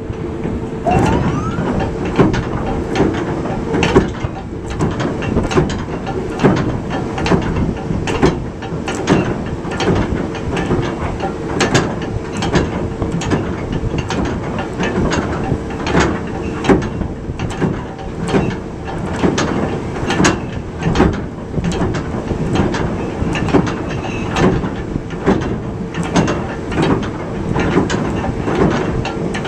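Ship's anchor windlass letting the anchor chain run out, the links clanking over and over against a rough rumble, with a steady hum running under it.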